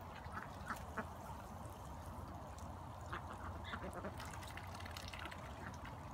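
Domestic ducks giving short, scattered quacks while dabbling at water from a garden hose, their bills making quick wet clicks.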